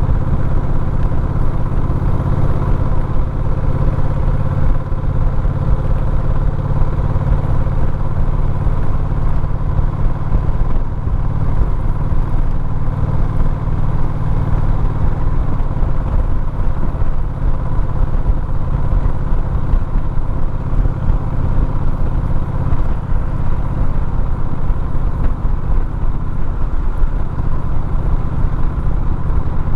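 Motorcycle engine running steadily under way, with road and wind noise. The engine note changes slightly near the end.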